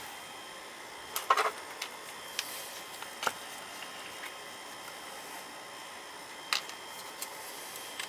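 A wrench and a small brass oil-burner fitting handled in gloved hands: scattered light metallic clicks and taps, a cluster about a second in and another near the end, over a steady low hiss.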